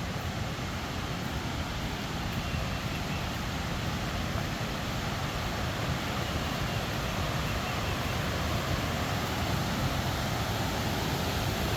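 Steady rushing roar of a waterfall, slowly growing louder.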